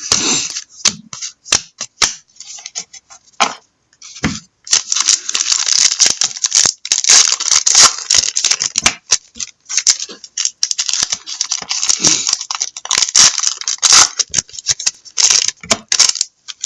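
Sports trading cards being handled and flipped through, with a card pack's wrapper crinkling and tearing open: scattered clicks at first, then a near-continuous crackling rustle from about five seconds in.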